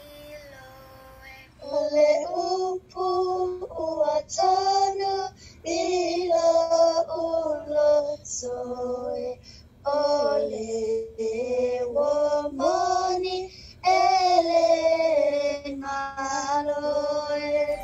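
Young girls singing a song in short phrases with brief pauses between them, faint at first and much louder from about a second and a half in. The singing comes through a video call.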